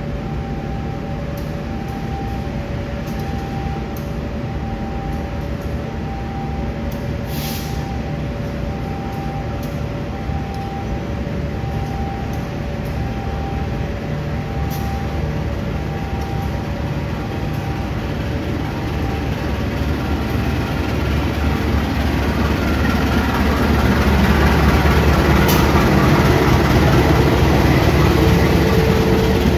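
Diesel-electric locomotive hauling a passenger train out of the station: a steady low engine rumble that grows much louder over the last several seconds as the locomotive comes up and passes close by. A short beep repeats a little more than once a second through the first two-thirds.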